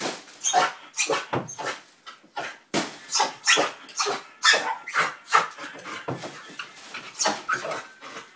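Pit bull barking and yelping excitedly in a rapid, irregular series of short outbursts, about two a second, with brief lulls.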